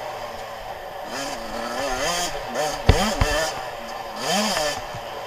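Suzuki RM 85 two-stroke single-cylinder motocross engine revving up and falling back several times as the bike is ridden, with a sharp thump about three seconds in.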